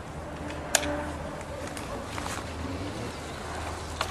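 Bicycle being handled and mounted: a sharp metallic clank about a second in, over a steady low rumble.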